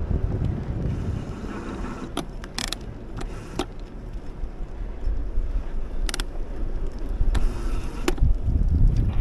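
Wind buffeting the microphone over a low rumble of wheels rolling on a paved path, with several sharp clicks spread through.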